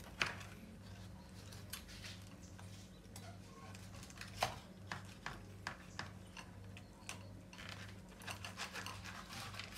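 Knife and fork cutting into a roasted rabbit on a plastic cutting board: irregular scrapes and sharp clicks of metal against the board and meat. The loudest clicks come just after the start and about four and a half seconds in. A steady low hum runs underneath.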